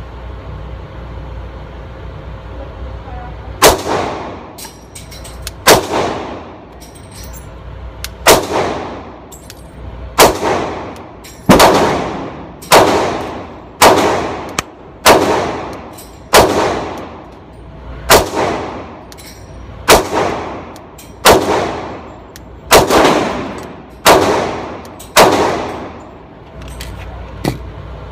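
A Gen 3 Glock 22C .40 S&W pistol firing a string of about fifteen single shots, one every second or two, each shot echoing and dying away in the enclosed range. A few small clicks of the pistol being handled come near the end.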